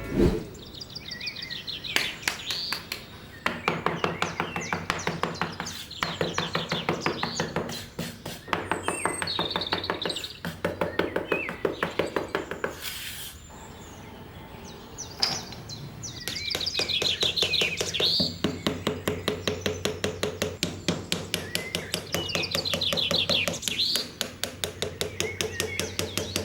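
Birds chirping over a quick, regular knocking of about three strokes a second, with a steady low hum beneath. The knocking pauses briefly about halfway through.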